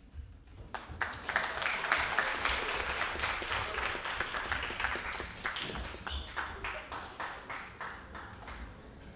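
Audience applauding: clapping breaks out about a second in, holds for a few seconds, then gradually dies down.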